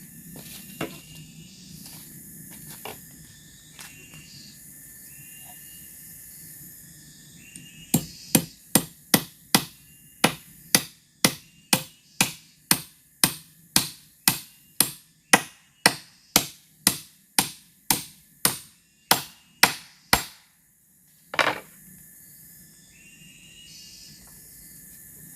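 Hammer blows on bamboo while building a bench: a steady run of about two dozen sharp strikes, roughly two a second, starting about a third of the way in, then a single last blow a second later.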